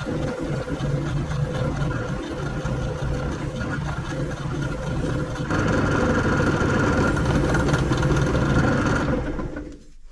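Benchtop drill press running with an abrasive brush wheel in its chuck, grinding a raw stainless steel flat bar to rough off the mill finish. About halfway through the grinding stops and the motor hum turns louder and steadier, then the sound cuts off near the end.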